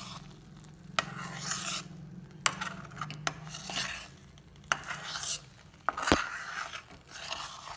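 A ladle stirring and scraping a thick, drying almond-sugar paste around a pan in repeated strokes, with sharp clicks as it knocks the pan and one louder knock about six seconds in. The paste is being kept moving so it does not catch on the bottom. A low hum runs under the first half and fades out.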